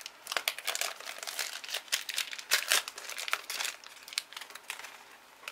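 Foil wrapper of a World of Warcraft trading-card booster pack crinkling as it is pulled open and the stack of cards is drawn out: quick, irregular crackles that thin out toward the end.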